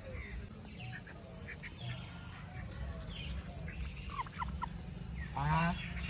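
White domestic turkey tom in strutting display gives a short, rapid gobble near the end. A few brief calls from the other fowl come a second or so before it.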